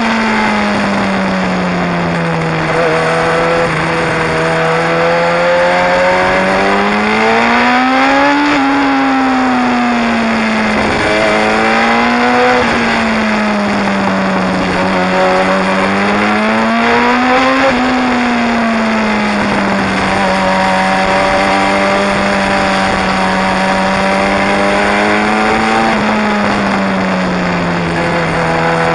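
Sport motorcycle engine running under way, its pitch rising and falling several times as the rider speeds up and eases off, with a short sharp drop about eleven seconds in. A steady rush of wind and road noise runs under it.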